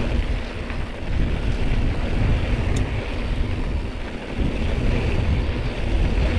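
Wind buffeting the microphone as a steady low rumble while a mountain bike rides a dirt trail, with one faint click about three seconds in.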